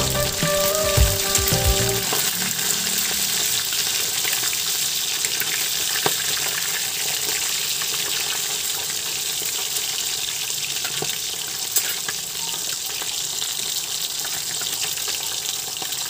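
Whole short mackerel (hasa-hasa) deep-frying in a wok of oil: a steady sizzle with occasional clicks of a spatula and tongs against the pan. Music plays over the first two seconds and then stops.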